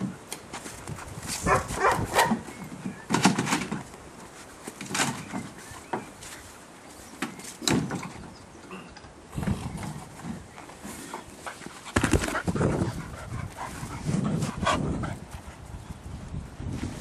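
Spaniel barking repeatedly, short barks coming irregularly every second or two.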